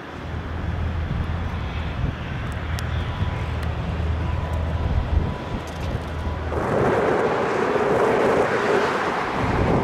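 A steady low engine drone. About six and a half seconds in it gives way to a louder, rushing noise.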